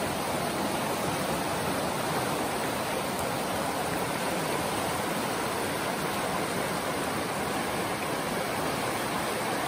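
River rapids rushing over rocks: a steady, unbroken whitewater noise.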